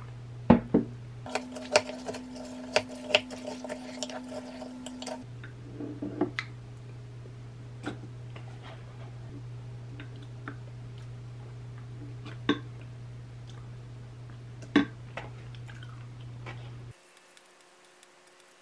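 Metal spoon clinking and scraping in a glass mug of yogurt and granola, irregular sharp clinks, a few of them loud, with small eating sounds, over a steady low hum that stops about seventeen seconds in.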